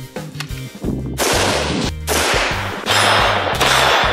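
Daniel Defense DDM4 V7 AR-15 rifle fired in semi-auto, about four shots under a second apart starting about a second in, each with a short fading tail, over background music with a steady bass line.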